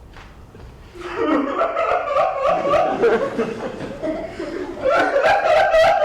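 A person laughing loudly in rapid pulses, starting about a second in.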